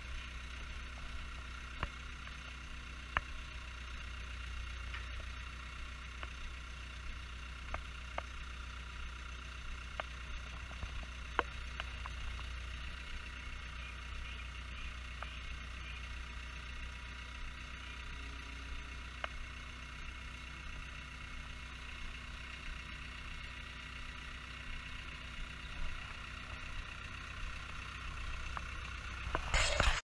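Caterpillar skid steer's diesel engine running steadily, with scattered sharp clicks and knocks as it handles a bundle of roof trusses, and a brief loud burst of noise just before the end.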